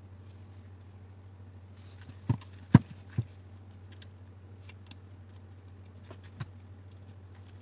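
A few sharp clicks and taps from handling small grinder parts while new carbon brushes are fitted into the DeWalt angle grinder: three close together about two to three seconds in and another about six seconds in, with fainter ticks between. A steady low hum runs underneath.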